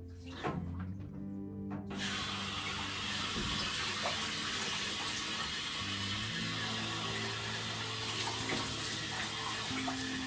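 Handheld shower head spraying water, with a steady hiss that starts suddenly about two seconds in as the water is turned on.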